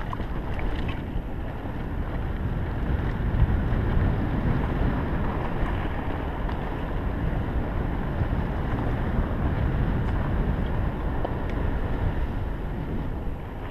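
Mountain bike riding fast over a dirt forest trail, heard from a camera on the bike or rider: a steady, unpitched rush of wind on the microphone over the low rumble and rattle of the tyres and bike on the dirt, swelling and easing slightly with the terrain.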